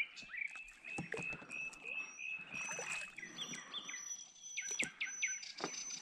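Water splashing and light knocks around a small boat as a small hooked catfish is brought up to the surface on a set line. High, thin, steady night-time calls carry on behind, with a run of quick falling chirps near the end.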